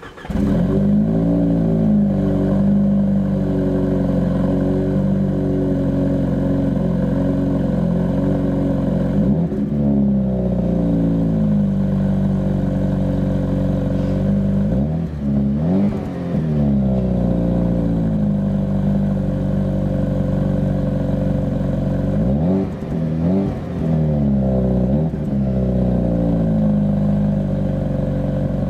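Opel Astra J OPC's turbocharged 2.0-litre four-cylinder idling just after starting, with short throttle blips: one about nine seconds in, two around fifteen seconds, and three in quick succession a little after twenty-two seconds, each rising and falling straight back to idle.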